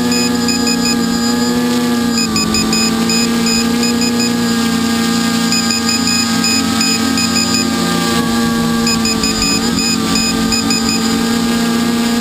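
Multicopter's electric motors and propellers hovering, a steady buzzing hum that shifts slightly in pitch about two seconds in and again near eight seconds. Bursts of quick, high-pitched electronic beeps repeat through it.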